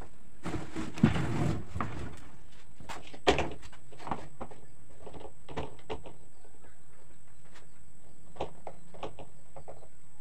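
Handling sounds of a long plastic pipe being laid and slid across a sheet of plywood: a scraping, shuffling stretch for the first couple of seconds, a sharp knock about three seconds in, then scattered light taps and clicks.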